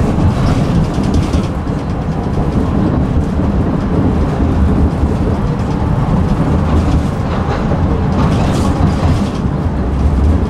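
Tram running along its rails: a steady low rumble, with two spells of brighter rattling clatter, one near the start and one about eight seconds in.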